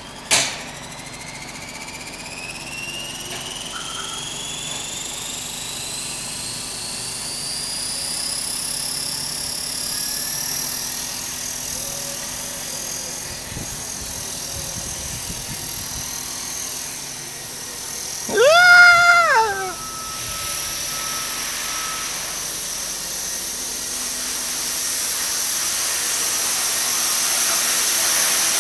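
Align T-Rex 450 SE electric R/C helicopter spooling up: a whine that climbs steadily in pitch for about ten seconds, then runs on at a high, steady pitch. A sharp click comes at the very start, and a short, loud cry that rises and falls in pitch cuts in about two-thirds of the way through.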